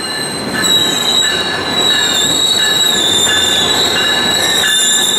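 A train rolling into the station with a steady, high-pitched metal squeal from its wheels, holding several pitches at once over a rumble.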